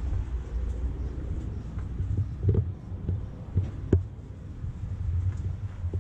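Low rumble of handling noise and wind on a handheld camera's microphone as it is carried along, with a few short knocks.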